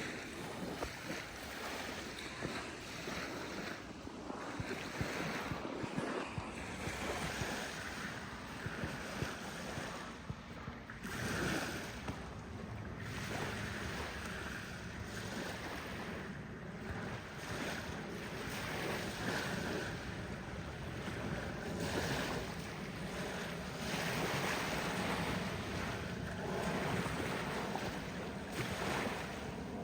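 Waves washing on a beach, with wind on the microphone; the wash swells and eases every few seconds.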